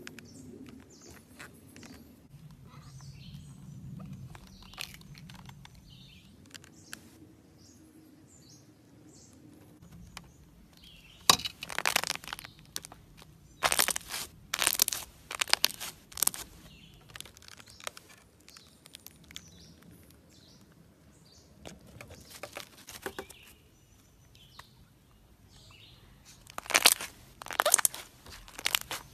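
Slime squished and pressed through the strings of a badminton racket by hand, giving wet crackling and popping bursts, faint at first and loudest in clusters about a third of the way in and again near the end.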